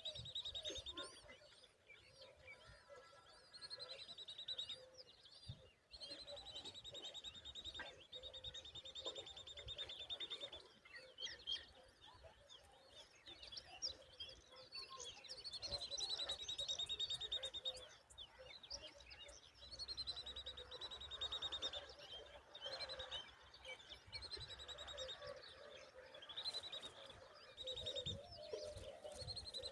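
Common babblers calling: a series of high-pitched, rapid trills, each lasting one to two seconds and dropping slightly in pitch, repeated every few seconds.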